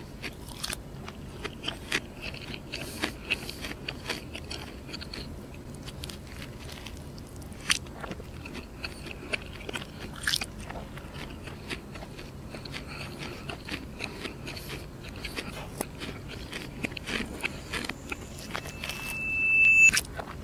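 Close-miked chewing and mouth sounds of a man eating a fried chicken burger: soft wet clicks and crunches. Near the end a high tone swells up and cuts off abruptly.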